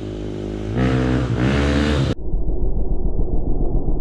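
Dirt bike engine coming up the trail, revving higher about a second in. About two seconds in the sound changes abruptly to a rough, muffled low rumble.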